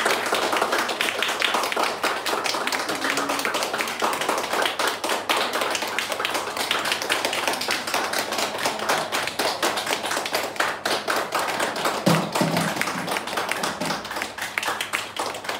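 A small audience applauding: many hands clapping steadily, thinning a little near the end.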